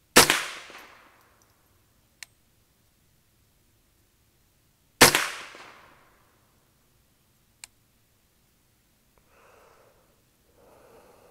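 Two shots from a Ruger 10/22 semi-automatic .22 LR rifle, about five seconds apart, each report trailing off over about a second. A faint click follows each shot a couple of seconds later, and two soft, short noises come near the end.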